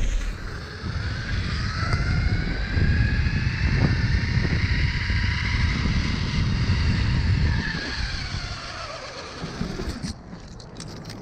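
Zipline trolley pulleys running along a steel cable, a whine that climbs in pitch as the ride picks up speed and falls as it slows, under heavy wind rumble on the microphone. It dies away with a few clicks about ten seconds in, as the rider reaches the platform.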